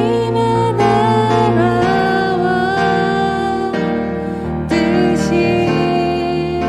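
Worship song: a singer holding long notes of a slow melody over electric piano chords.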